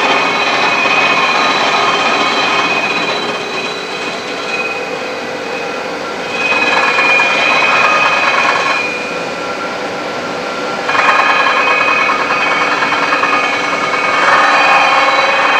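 W class tram wheelset spun by the traction motor on its own axle, a steady whine made of several tones, one of them slowly rising. Louder, rougher stretches come in three times, about six seconds in, about eleven seconds in and near the end.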